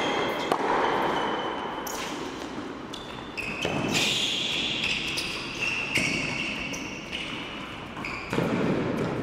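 Tennis rally on an indoor hard court: sharp racket strikes and ball bounces every one to two seconds, echoing in the hall.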